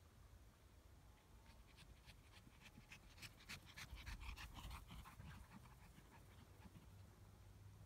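Small Shih Tzu dog panting quickly as it runs on the grass, a faint run of short rapid breaths that grows loudest around the middle as the dog comes close, then fades.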